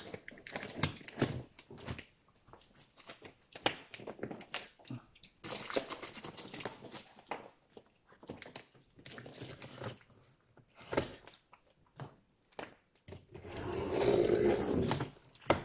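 Utility knife cutting through packing tape and cardboard on a shipping carton, in scratchy strokes with knocks and rustles between. The longest, loudest cut comes near the end.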